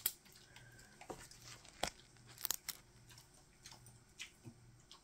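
Faint paper-handling noise as printed diamond-painting canvases are picked up and shuffled: light rustling with a few sharp clicks and taps, the loudest about two and a half seconds in.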